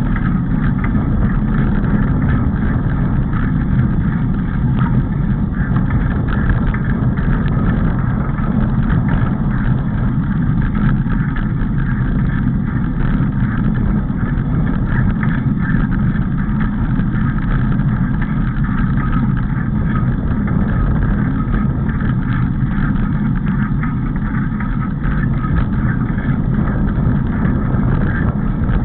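Steady rumble of a vehicle travelling along a gravel forest track, tyre and wind noise without a break.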